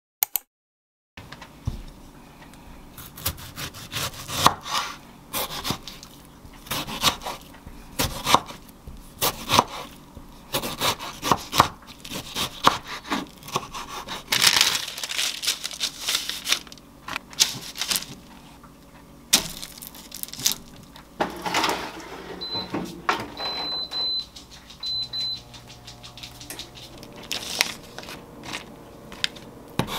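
A kitchen knife cuts tomatoes on a wooden cutting board, making irregular sharp knocks of the blade against the wood. A few short high beeps sound a little past two-thirds of the way in.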